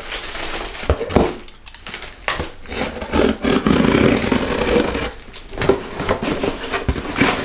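Scissor blade drawn along the packing tape of a cardboard shipping box, slitting it open: scraping and ripping in stretches, with two short pauses.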